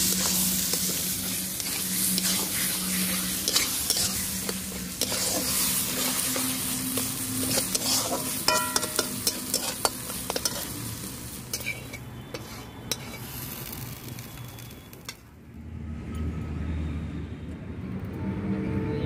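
Metal spatula stirring and scraping a thick taro and fish-head mash in a karahi over a wood fire: a steady sizzle with sharp clicks and scrapes of the spatula against the pan. About three quarters of the way through, the sizzle and clicks stop and a quieter low rumble takes over.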